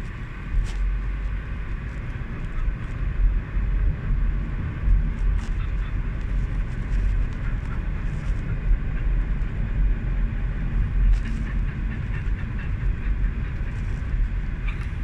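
Steady low road and engine rumble heard inside the cabin of a moving car, with a few faint ticks.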